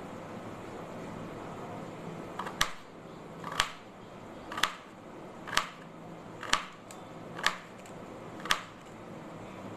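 Kitchen knife slicing through a carrot onto a wooden chopping board: seven sharp knocks about a second apart, starting a couple of seconds in.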